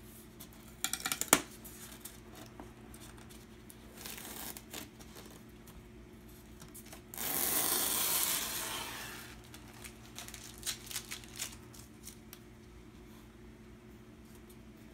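A knife cutting and scraping along the packing tape that seals a styrofoam shipping box: scattered small clicks and scratches, a sharp click about a second in, and one longer tearing scrape of about two seconds midway.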